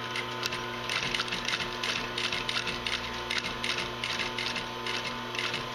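Industrial walking-foot sewing machine stitching single-layer leather, its needle and feed mechanism making a steady run of rapid clicks over a constant hum.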